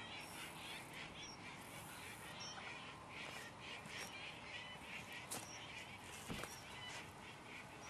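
Faint, repeated bird calls, with a couple of light clicks about five and six seconds in.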